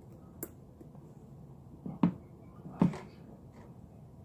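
Slime being worked by hand: a faint click, then two louder short pops about two and three seconds in.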